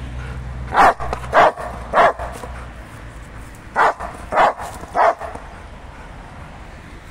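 Rottweiler barking upward at a cat in a tree: three quick barks, a pause of about a second and a half, then three more.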